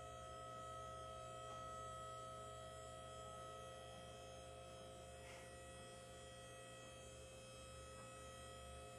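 Faint, steady electric hum with several constant whining tones, from the hydraulic power unit driving a large hydraulic hangar door as it opens.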